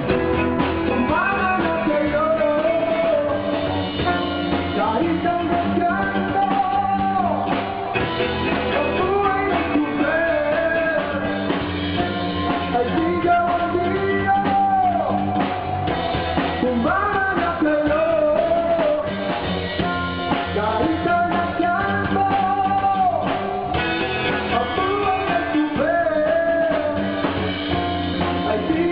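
A rock song with a singer over a drum kit, playing without a break.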